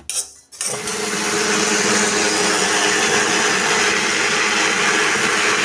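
Electric mixer grinder switched on about half a second in and running steadily, grinding dry-roasted whole spices (cumin, black pepper, mustard) into pickle masala.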